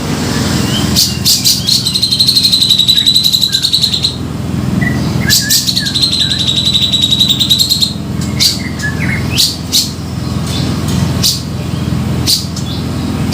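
Cucak jenggot (grey-cheeked bulbul) calling, as played for luring birds: two long, rapid, rattling trills of about two and a half seconds each, with sharp chipping notes between and after them, over a steady low hum.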